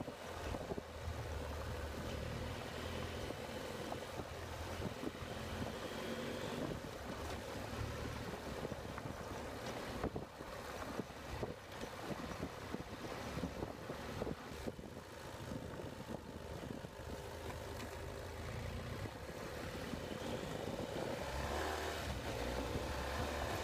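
BMW F800GS parallel-twin engine running under way on a gravel track, mixed with wind noise on the microphone and scattered knocks from the rough surface. It gets a little louder near the end.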